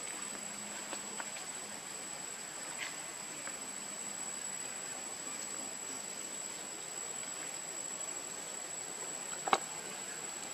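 Steady high-pitched drone of insects in forest, over a faint hiss, with a few faint ticks and one sharp click about nine seconds in.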